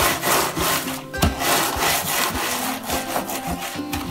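Wooden rolling pin rolled back and forth over crackers in a zip-top plastic bag, crushing and rubbing them into fine crumbs in repeated strokes.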